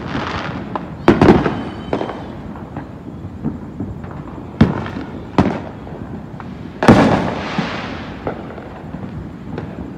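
Fireworks and firecrackers going off: scattered sharp bangs that echo away, a quick cluster about a second in, single bangs near the middle, and the loudest about seven seconds in, with smaller pops between.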